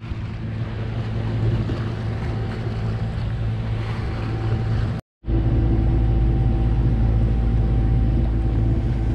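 A sailboat's auxiliary engine running steadily while motor-sailing, with the rush of wind and water over it. About five seconds in the sound drops out for a moment and comes back with the engine hum louder and steadier.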